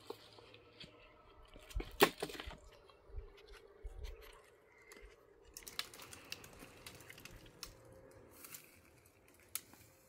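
Faint, scattered clicks and rustles of things being handled, with a sharp click about two seconds in.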